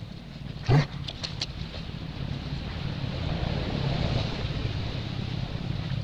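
Dry leaves rustling and crackling as a macaque moves over the leaf-strewn forest floor, with one sharp knock about a second in, over a low wind rumble on the microphone.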